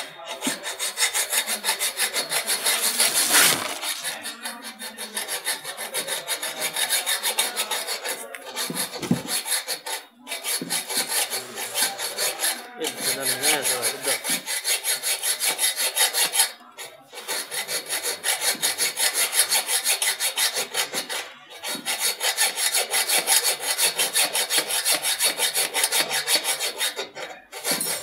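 A hand-held hacksaw blade cutting a metal stopper bracket on a scooter's stand, in rapid back-and-forth strokes, about four a second. The strokes pause briefly a few times.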